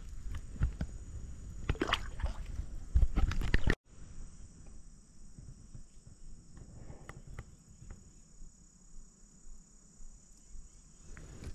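Steady high-pitched drone of insects, with rustling, clicks and knocks of handling close by, loudest in the first four seconds. Just before four seconds in, the sound drops out for a moment; after that the insect drone carries on with only light clicks.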